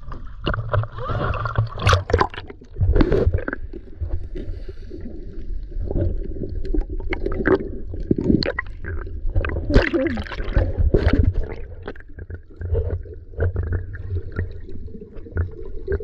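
Water sloshing and gurgling around a handheld action camera as it goes through the surface and under water, over a steady low muffled rumble, with many sharp splashes and knocks.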